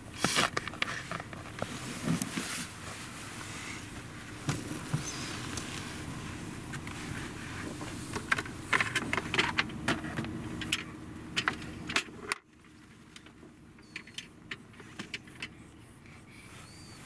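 Steady low hum of a car cabin with scattered clicks and rustles as a cat moves about the seats and a plastic pet carrier. About twelve seconds in, the sound drops abruptly to a quieter hush with only a few faint clicks.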